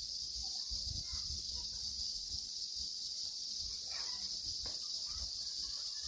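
Steady high-pitched drone of an insect chorus in the trees, with a low uneven rumble underneath.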